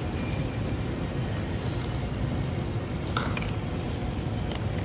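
Steady low mechanical hum, with a short crinkle of a thin plastic bag a little after three seconds in as a bag of carrot juice is handled and tied.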